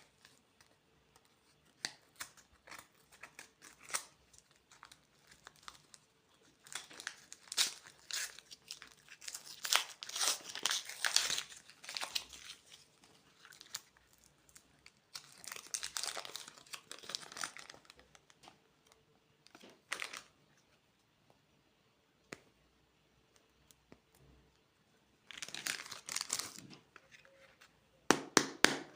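Plastic candy wrappers crinkling and tearing as sweets are unwrapped by hand. The sound comes in crackly bursts lasting from one to several seconds, with scattered light taps and clicks between them, and is loudest near the end.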